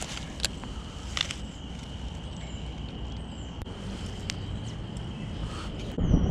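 Outdoor ambience with wind rumbling on the microphone and a steady high-pitched drone, broken by a few sharp clicks and faint short bird chirps. A louder gust of wind comes about six seconds in.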